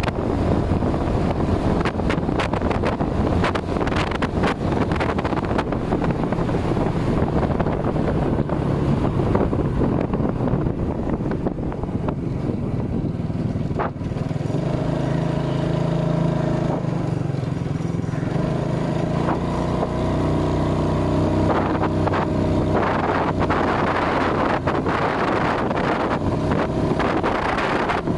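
Wind rushing over the microphone on a moving motorcycle, with the engine's steady hum coming through more clearly about halfway through.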